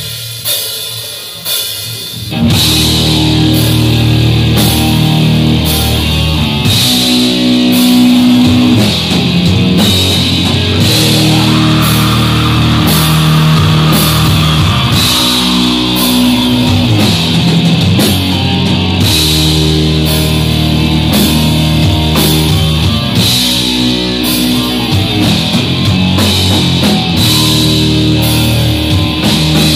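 Black metal band playing live, with distorted electric guitars, bass and drum kit. A quieter held chord rings at first, and the full band comes in loud about two seconds in.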